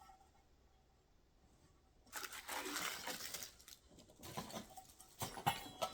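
Packaging crinkling and rustling as items are handled and unwrapped, starting about two seconds in, followed by a few sharp knocks and more rustling.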